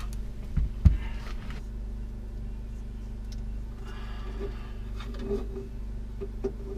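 Steady low hum of a running generator, with a couple of short knocks about a second in.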